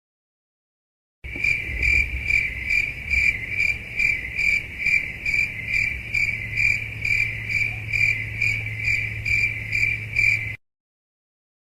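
Stock cricket-chirping sound effect, the classic 'awkward silence' joke cue: an even run of high chirps, about two and a half a second, over a low steady hum. It starts about a second in and cuts off abruptly near the end.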